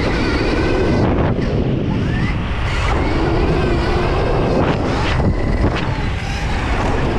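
Stark VARG electric dirt bike being ridden: heavy wind noise on the helmet-mounted camera's microphone, with the electric motor's whine rising and falling faintly underneath.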